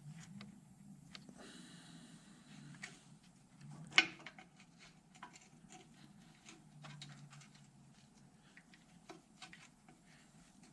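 Quiet handling noises of small parts being worked by hand: scattered light clicks and taps, one sharp click about four seconds in, and a brief soft hiss near the start, over a faint low hum.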